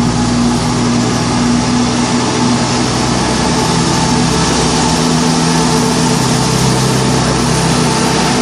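A Greater Anglia passenger train's diesel engines running loudly and steadily, with several held tones, as the train sets off from the station.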